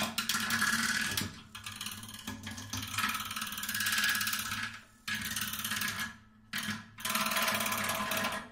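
Acoustic guitar lying flat, mechanically agitated: its strings and body are set into a fast rattling buzz with a few held ringing tones through it. The buzz breaks off briefly a few times in the second half.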